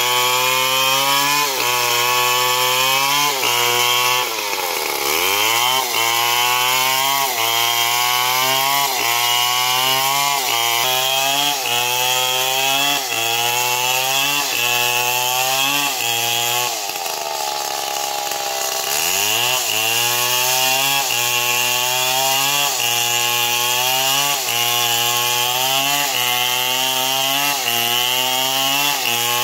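Stihl two-stroke chainsaw cutting through a neem log at high revs, its engine pitch sagging and recovering about once a second as the chain bites under load. Twice the throttle eases off and the engine drops to a low pitch before revving back up: briefly about five seconds in, and for about two seconds past the middle.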